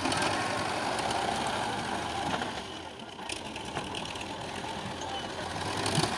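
Diesel tractor engine running steadily while it works a front loader, with a few clatters, dipping a little in loudness about halfway through.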